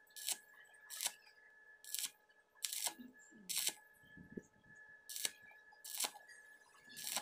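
Stick-welding arc on a steel pipe, heard as short sharp crackles that repeat about every 0.8 seconds over a faint steady tone.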